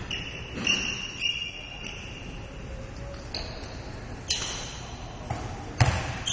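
Basketball shoes squeaking on the gym floor: several short, high squeaks as the players cut and stop, with a few basketball bounces, the loudest near the end.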